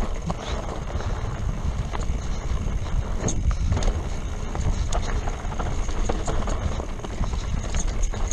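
Mountain bike descending a dirt forest trail: steady tyre and ride noise with many small rattles and knocks from the bike over bumps, under a heavy low wind rumble on the microphone.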